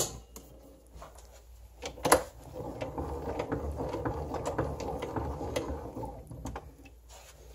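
Hand-cranked Victrola phonograph being wound: the crank turns the spring motor's winding gears with a steady rapid clicking for about four seconds, after two sharp knocks, one at the start and one about two seconds in.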